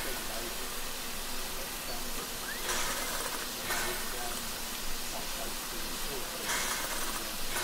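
Steam locomotive Britannia, a BR Standard Class 7 Pacific, standing and hissing steam steadily, with two louder surges of hiss lasting about a second each, one about a third of the way in and one near the end.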